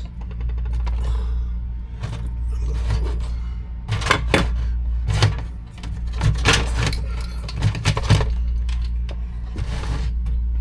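Scattered light metallic clicks and rattles from hand tools and small butt splice connectors being handled during wire splicing, over a steady low hum.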